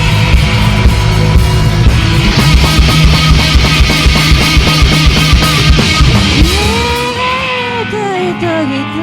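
Live rock band playing an instrumental passage: drums and distorted electric guitars, with the drums dropping out about six and a half seconds in, leaving a held low note under a sustained lead line that slides up and down in pitch.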